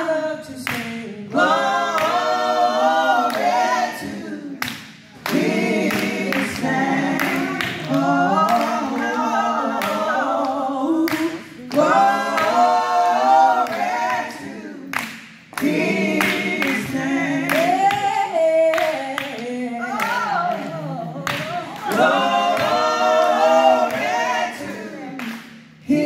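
A trio of women's voices singing a gospel hymn a cappella in harmony, in long phrases broken by short pauses for breath, with a few scattered hand claps.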